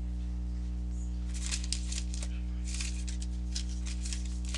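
Steady low electrical hum with a constant buzz of overtones, and faint scattered crackles.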